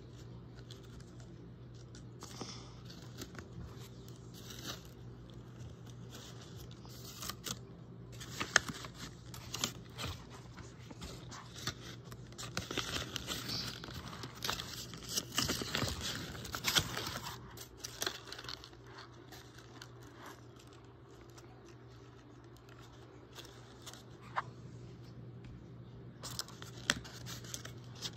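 Paper puppets being handled and folded: irregular rustling and crinkling of paper with scattered sharp taps, busiest in the middle and quieter later, over a faint steady low hum.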